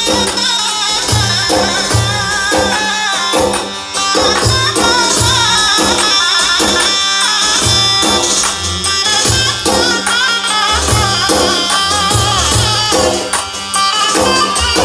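Loud folk music with tambourine and drum keeping a steady beat under a wavering melody line.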